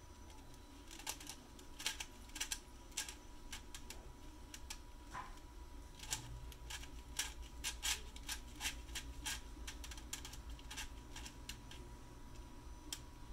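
FDM 3D-printed Pentultimate twisty puzzle turned by hand: its plastic pieces click and clack irregularly as the halves rotate, often several clicks in quick succession.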